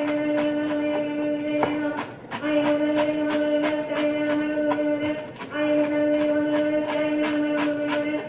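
Music: long held sung notes broken by short breath pauses, over a quick, steady tapping.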